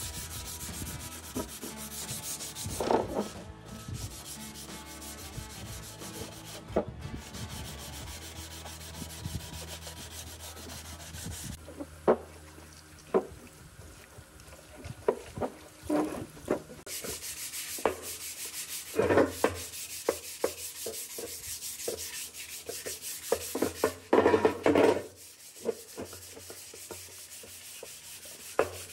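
Hand wet-sanding of Harley-Davidson motorcycle fenders with an abrasive pad: a steady scratchy rubbing of strokes over the painted metal. In the second half there are several sharp knocks.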